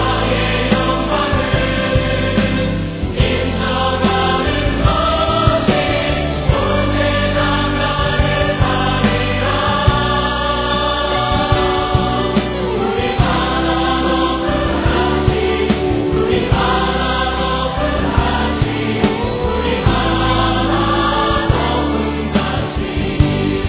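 Choir singing a Christian praise song over instrumental accompaniment, with a steady beat.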